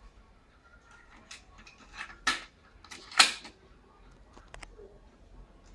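Clicks and clacks of a Sony TC-2350SD cassette deck's mechanism as a cassette is loaded and the cassette door shut: a few light clicks, then two sharp clacks about two and three seconds in, the second the loudest.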